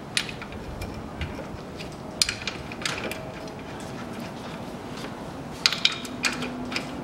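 Scattered metal clicks and clinks of bolts and tools as the engine mount's bolts are started by hand, with a quick cluster of clicks late on.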